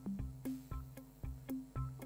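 Background music with a steady beat, about four beats a second, over a low bass line.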